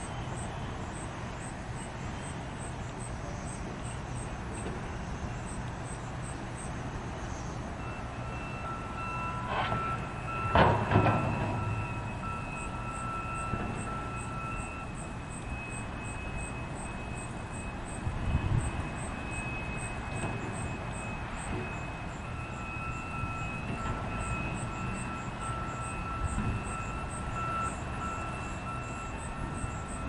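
Loaded coal train rolling past, a steady rumble of freight cars on the rails. A high steady tone starts about a quarter of the way in, stops, and returns in the second half, and there is a loud clunk about a third of the way in and a smaller one a little past halfway.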